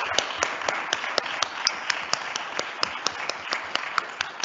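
Audience applauding, with sharp single claps standing out about four times a second; the applause slowly dies down.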